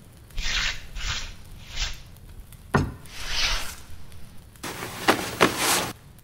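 Sound effects of a plaid blanket being handled: three short cloth swishes, a dull thump near the middle, another swish, then louder rustling of the cloth near the end.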